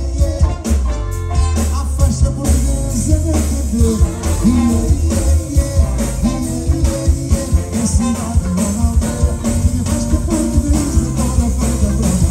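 Live band playing a song with a male lead singer over a steady drum beat, bass and electric guitar, with a horn section of saxophone, trumpet and trombone.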